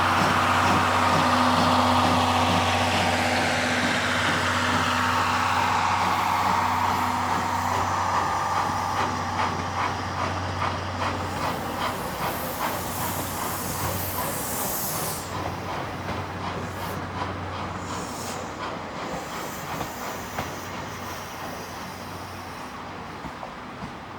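C11 tank steam locomotive passing close with a loud hiss of steam that falls in pitch as it goes by. Then the coaches' wheels click over the rail joints in a steady rhythm, fading as the train draws away.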